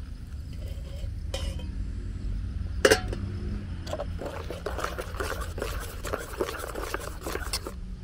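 Metal spoon stirring a drink in a stainless steel mug, clinking quickly and repeatedly against the sides from about four seconds in until just before the end. A single loud clink comes about three seconds in.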